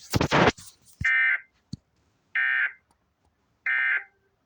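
Emergency Alert System end-of-message data bursts: three short, identical bursts of screechy digital tones about 1.3 seconds apart, signalling the end of a severe thunderstorm warning. A brief loud burst of noise comes just before the first one.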